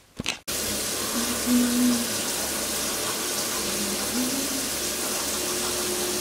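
Tap water running steadily into a bathroom sink, an even rushing hiss that starts abruptly about half a second in.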